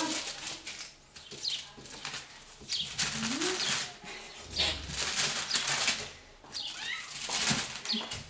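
Newspaper lining the cage floor rustling and crinkling in several bursts as a cat paws at the sheets and a hand moves them.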